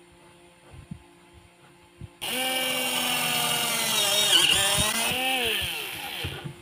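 Small cordless electric drill starting about two seconds in and boring through a plastic sheet. The motor's whine dips in pitch several times as the bit loads up, then recovers. Before it starts there are only a few light handling taps.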